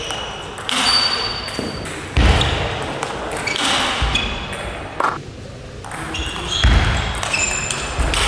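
Table tennis rally: the ball cracking off paddles and bouncing on the table in single sharp clicks, echoing in the sports hall, with short high squeaks between strokes.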